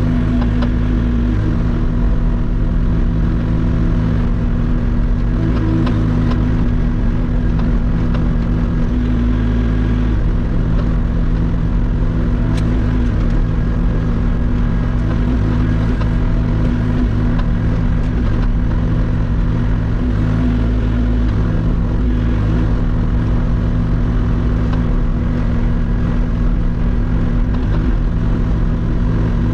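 Hauyee HY35C mini excavator's diesel engine running at a steady speed while the machine works.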